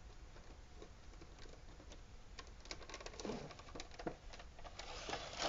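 A cardboard figure box being opened and tipped out, its clear plastic blister tray sliding free: scattered clicks and crinkling of plastic and cardboard, busiest in the second half.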